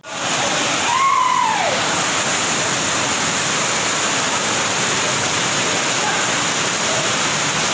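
Muddy floodwater from heavy rain gushing in a torrent over the stone floor of a flooded temple: a steady, loud rush of water.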